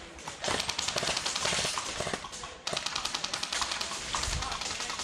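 Airsoft guns firing long full-auto strings of rapid clicking shots. One string breaks off about two and a half seconds in and another starts straight after.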